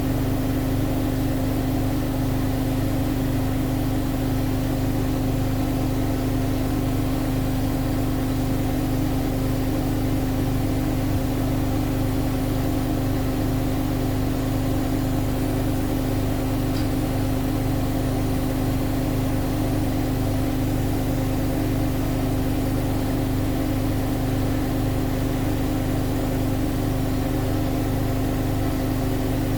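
Siemens Siwamat IQ 716 washing machine running steadily: a constant hum at one even pitch over a low rumble, with no change in speed.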